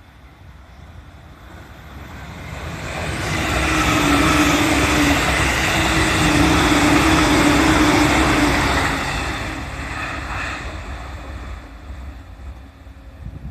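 E657-series electric limited express train passing at speed. The rushing noise builds over about four seconds, stays loud for about five, then fades.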